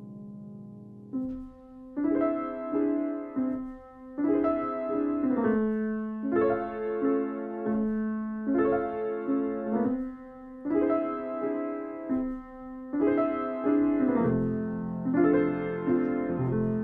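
Grand piano played solo: a held chord dies away, then from about a second in the playing moves in short phrases of quick notes and chords, a new phrase starting about every two seconds.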